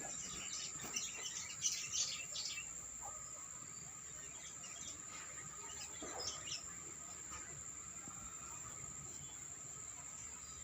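Yellow-vented bulbuls calling with short chirps, a busy cluster about a second in and a few more past the middle, over a steady high-pitched drone.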